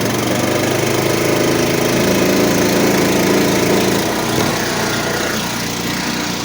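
Gasoline pressure washer engine running steadily just after start-up, its note changing about four seconds in.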